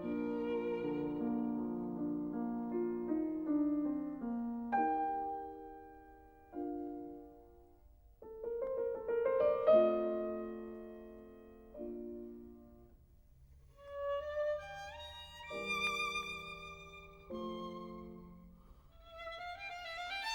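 Background music: a slow instrumental piece with violin, in phrases of held notes with brief pauses between them.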